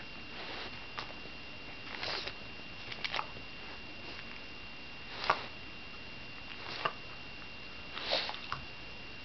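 Shiba Inu sniffing close at a pile on the floor: short, irregular sniffs about once a second, the loudest about five seconds in.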